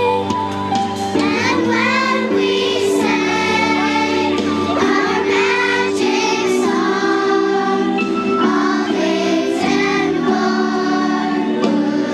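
Children's choir singing a song over instrumental accompaniment that holds sustained chords.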